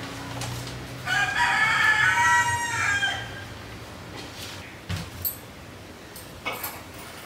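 A bird calling once: a single drawn-out call about two seconds long, gently rising and falling in pitch.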